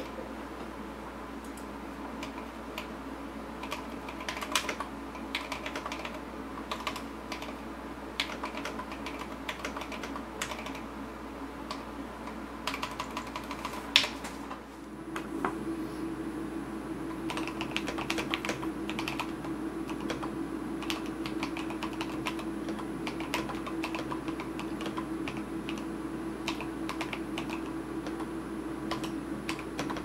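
Typing on a custom LCK75 mechanical keyboard with lubed and filmed C3 Kiwi tactile switches, lubed C3 stabilizers and Drop MT3 keycaps: a steady stream of keystroke clacks, with one sharper clack about halfway through.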